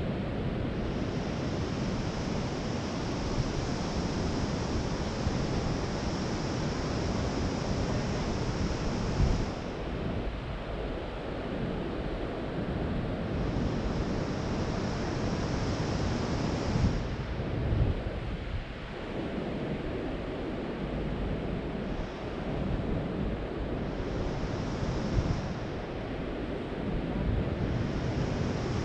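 Sea surf washing onto a sandy beach, with wind buffeting the microphone as a steady low rumble.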